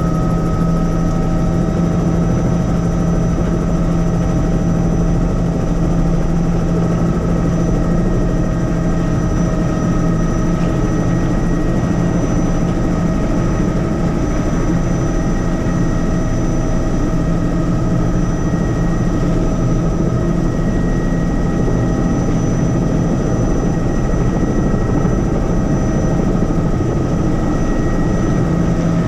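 Helicopter running steadily: a constant low drone from the rotors with a steady high whine from the turbine above it.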